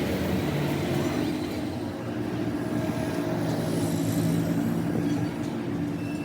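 Steady mechanical hum of a running motor, with several held tones and no strikes or knocks.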